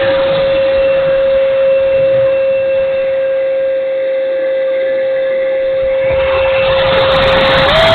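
Electric ducted fan of a Dynam Meteor RC jet whining at a steady pitch, which steps up near the end, over wind rumbling on the microphone.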